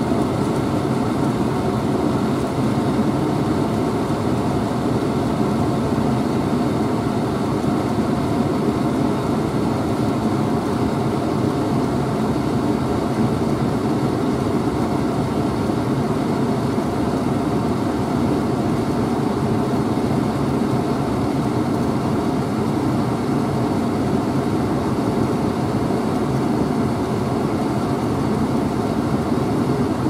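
Steady drone of a John Deere 9660 STS combine running while harvesting corn.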